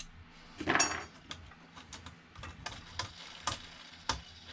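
Hand work on a 3D printer's heated bed and its adjuster knobs as the bed is taken off: a short metallic rattle about a second in, then a run of light clicks and taps about every half second.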